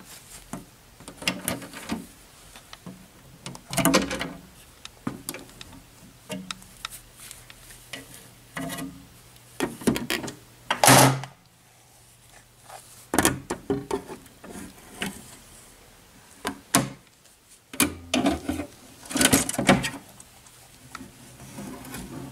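A plastic toy horse trailer being handled by hand: irregular clicks, knocks and short scrapes as its doors and latches are worked open.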